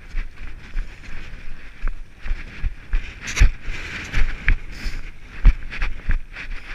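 Footfalls of a trail runner jogging downhill on a rocky mountain path, an uneven thud about twice a second, with gear and clothing jostling against the camera.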